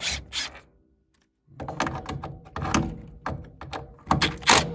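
Sharp clicks and knocks of tools and metal parts being worked as the draft inducer is unfastened from a gas furnace. There is a short pause about a second in, and the knocks pick up again, loudest near the end.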